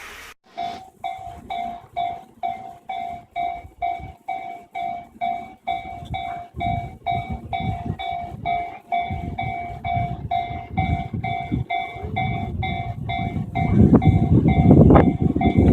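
Japanese railway level-crossing warning bell ringing in a quick, even ding-ding, about two and a half strokes a second. A train approaches under it: its rumble grows and becomes much louder near the end as it reaches the crossing.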